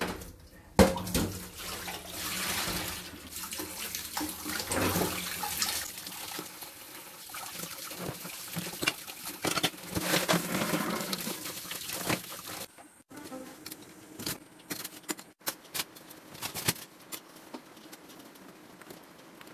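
Kitchen tap running into a stainless-steel sink while a steel pot is rinsed and scrubbed under it, with a sharp metal clank about a second in. The water stops suddenly about 13 seconds in, leaving scattered light clicks and knocks.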